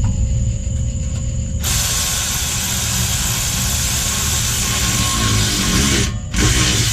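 Compressed air hissing into the truck's rear suspension air bags through the fill valve. The hiss starts suddenly about a second and a half in, breaks off briefly near the end and starts again, over a low steady rumble.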